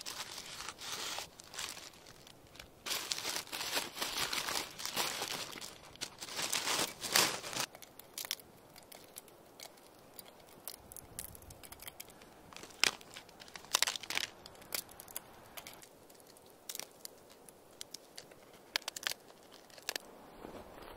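Paper crinkling and rustling as sheets of beeswax foundation are handled and broken up, loudest in the first eight seconds. Later come scattered sharp clicks as wax pieces are snapped off and dropped into a small metal tin.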